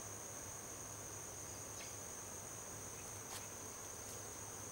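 Steady high-pitched drone of insects calling, with two faint clicks in the middle.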